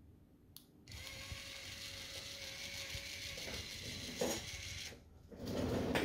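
Electric linear actuator motor running steadily for about four seconds, starting about a second in and stopping near the end, as the actuator retracts to its closed position.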